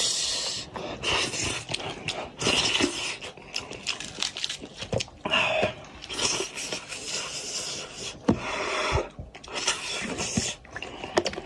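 A person eating noisily close to the microphone, sucking and chewing meat off a spicy goat's head: irregular slurps and sucking hisses with many sharp lip-smacking clicks.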